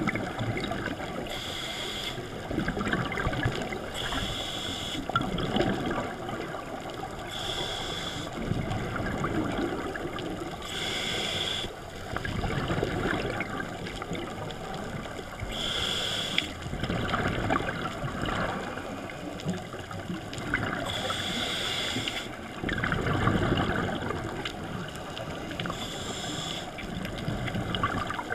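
Scuba diver breathing through a regulator, heard underwater through a GoPro's housing: a short hiss of inhaled air about every three to five seconds, each followed by the low bubbling rumble of the exhaled breath venting as bubbles.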